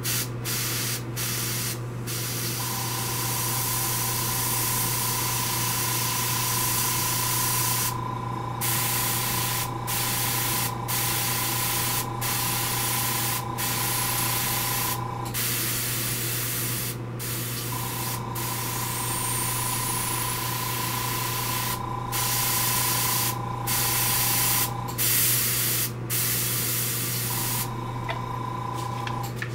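Gravity-feed airbrush spraying in a steady hiss to put dots of paint on a test card, the air cutting off briefly again and again as the trigger is let go between dots. A steady low hum runs beneath, and a thin tone comes and goes.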